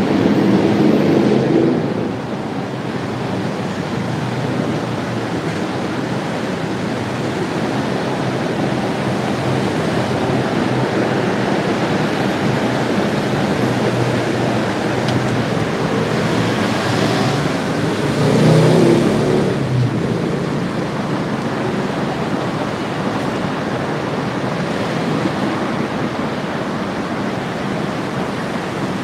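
Steady road traffic noise, swelling louder as vehicles pass near the start and about two thirds of the way in.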